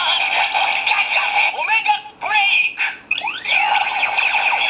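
DX Gan Gun Saber toy sword from Kamen Rider Ghost playing its finishing-move sequence through its small built-in speaker: electronic sound effects with sweeping, gliding tones and a recorded voice, thin and tinny. The sound breaks off briefly about two and three seconds in.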